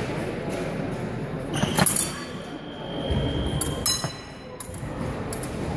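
Épée blades clinking against each other: a few sharp metallic clinks, the one about four seconds in ringing briefly.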